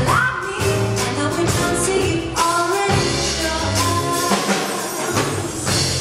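Live jazz combo playing: a woman sings the melody over electric bass, drums and percussion, with the bass line walking underneath and cymbals and drums keeping a steady beat.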